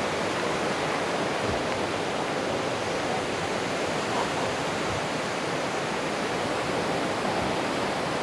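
Steady wind, an even rushing noise with no breaks.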